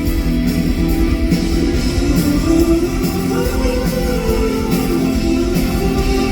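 A live rock band playing a song, guitars to the fore, with a voice singing over it.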